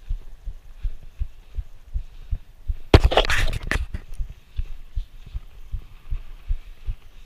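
Footsteps on a dirt walking track, heard as a steady rhythm of low thuds, about two to three a second, through a GoPro worn by the walker. About three seconds in, a loud burst of noise lasts about a second.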